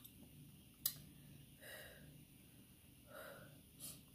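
Faint breathing of a person: two short, soft breaths about a second and a half apart, with a couple of faint mouth clicks.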